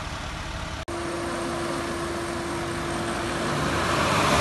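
Road vehicle noise: engines running with a steady hum, broken by a short dropout about a second in. Near the end the engine and road noise grows louder as a vehicle approaches.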